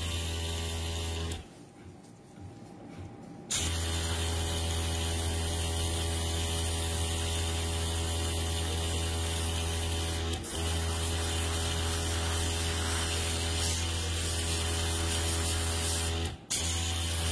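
Airbrush compressor running with a steady mechanical hum and a hiss of air as water-based stained-glass paint is sprayed onto a nail tip. It cuts out about a second in and starts again a couple of seconds later, with two brief drop-outs near the middle and near the end.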